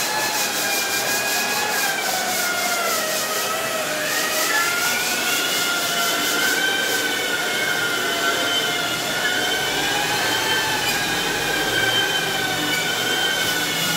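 Several electric long-handled wall sanders with dust-extraction hoses running together on wall putty: a steady rushing hiss with a few motor whines whose pitches drift slowly up and down and cross one another.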